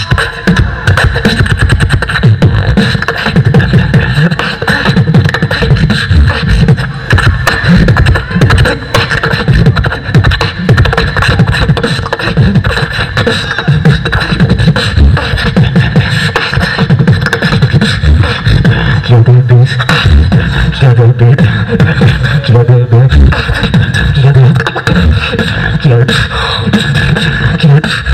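Beatboxer performing a solo round into a handheld microphone: a continuous, loud stream of vocal drum sounds in a fast rhythm over heavy bass, with a few held bass notes about two-thirds of the way through.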